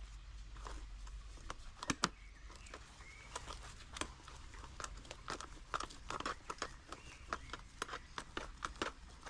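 Small hand cultivator's metal tines scratching and raking through potting soil and weeds in a plastic pot: a quick, irregular run of scrapes and ticks, with a couple of louder ones about two seconds in.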